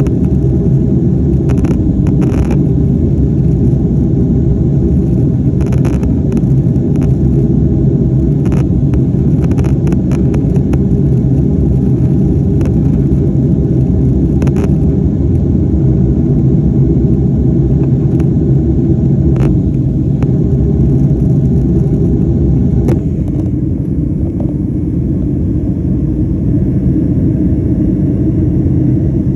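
Loud, steady low rumble of a moving vehicle heard from inside, with light clicks scattered through it. The higher hiss drops away about 23 seconds in.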